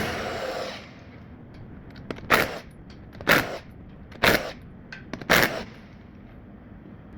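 Impact wrench fired in four short bursts about a second apart, after a louder burst that tails off in the first second.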